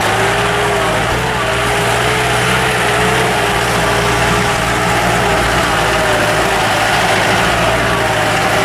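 Motor vehicle engine running steadily while driving, heard from inside the vehicle, with a steady whine that wavers slightly in pitch.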